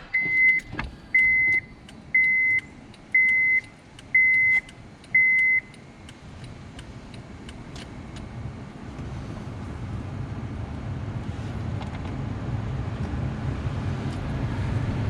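A car's warning chime beeps six times, evenly about once a second, then stops. After it, low rumbling road and engine noise from inside the vehicle builds steadily.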